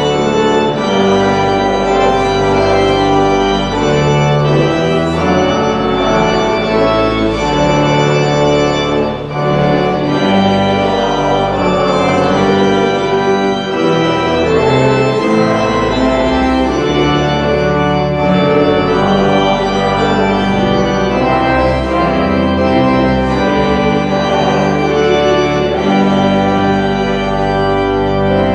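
Church organ playing sustained chords that change every second or two over long-held low bass notes.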